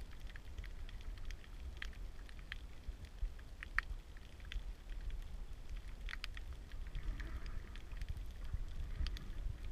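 Muffled underwater sound through a camera's waterproof housing: a steady low rumble of moving water with scattered sharp clicks and crackles, a few each second.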